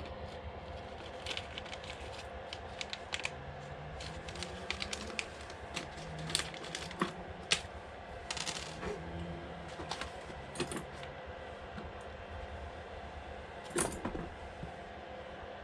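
Scattered light clicks and rustles of small plastic parts and their plastic parts bag being handled, for a Traxxas wheelie bar kit just cut open, with a few sharper clicks and a faint steady hum underneath.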